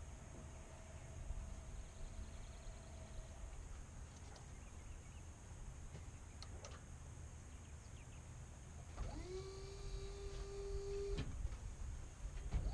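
A small motor spins up, runs steadily for about two seconds, and cuts off, over low background rumble.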